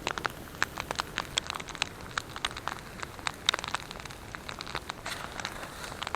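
Wood campfire crackling, with irregular sharp pops and snaps over a light hiss.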